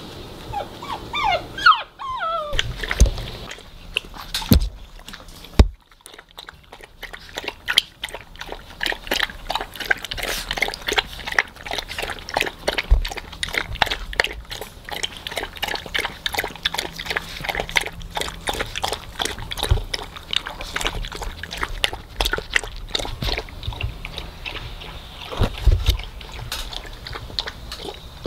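A puppy whimpers briefly with high, wavering cries, followed by a few knocks. Then a Weimaraner puppy laps water from a stainless steel saucepan: a long, fast run of wet lapping clicks, several a second.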